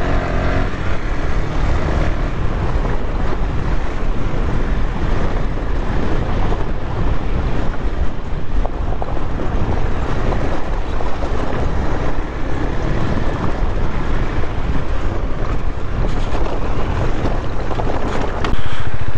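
KTM 390 single-cylinder engine running steadily at low road speed on a rough gravel track, mixed with heavy wind rumble on the microphone. The noise gets louder for a moment near the end.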